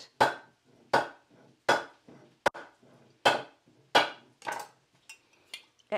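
Kitchen knife striking the metal lid of a glass jar: six sharp knocks about three-quarters of a second apart, then a few lighter knocks near the end. The lid is stuck fast, and the knocking breaks its seal so it can be unscrewed.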